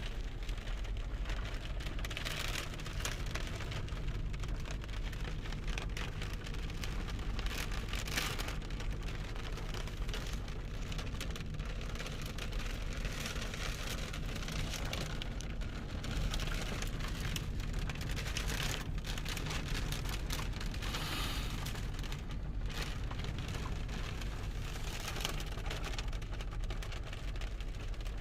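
Strong gusting wind, up to about 65 mph, blowing a hiss that swells and falls every few seconds over a constant low rumble of wind buffeting the microphone.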